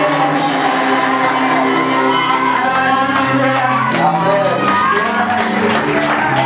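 Live church worship music: several voices singing over keyboard and bass accompaniment, with sharp percussive strokes coming in thicker from about four seconds in.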